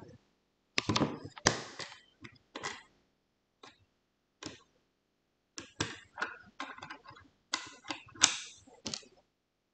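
Irregular sharp clicks and knocks of hardware being handled while a different eMMC chip is swapped into the programmer's socket adapter. They come in a cluster in the first few seconds, a lone knock midway, and a denser run in the last third.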